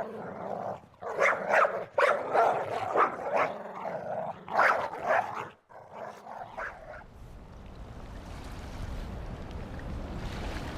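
A dog barking and yipping in a quick run of short calls for about seven seconds, then a steady low rumble that slowly grows louder.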